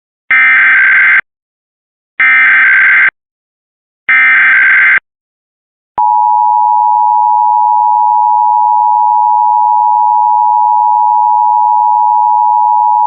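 Three short bursts of Emergency Alert System SAME header data tones, each about a second long, opening a Required Monthly Test alert. About six seconds in, the steady two-tone EAS attention signal starts.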